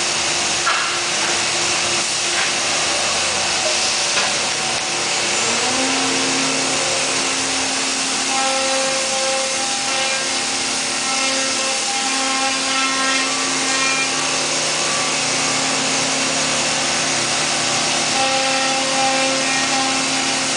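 Biesse Rover 30 CNC machining centre running and cutting a wood panel: a steady machine noise, with a whine that starts about six seconds in and keeps coming and going.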